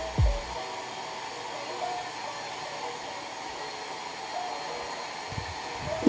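Showsee anion hand-held hair dryer running steadily, a continuous airy rush of blown air, with a few low bumps as it is handled.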